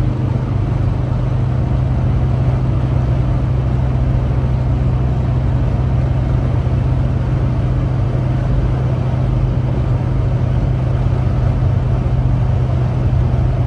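1980 Mercedes-Benz 300SD's five-cylinder turbo diesel engine running steadily, with no change in speed.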